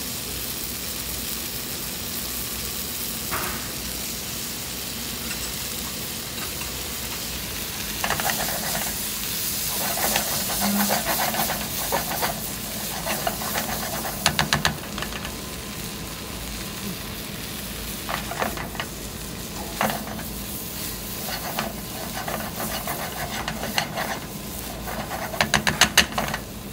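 Chickpea curry sizzling steadily in a frying pan, with a spatula stirring and scraping through it in bursts from about eight seconds in.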